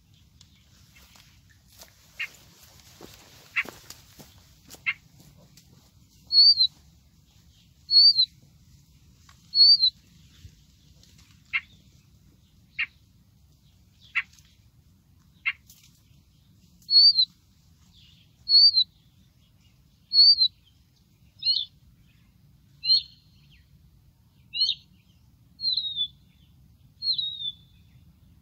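Siberian rubythroat calls played through a bird-caller speaker as a lure: loud short whistled notes repeated about every one and a half seconds, with sharp single ticks between them for a few seconds midway. A few clicks come first, before the calls start.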